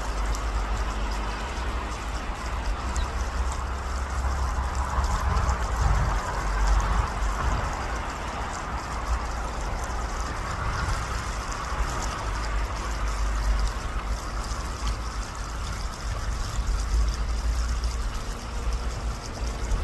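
A stream of water flowing and trickling steadily, with a low, gusting rumble of wind underneath.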